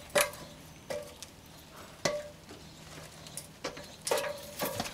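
Aluminium extension ladder clanking under someone's feet as they climb it: about six sharp knocks at uneven intervals, each with a brief metallic ring.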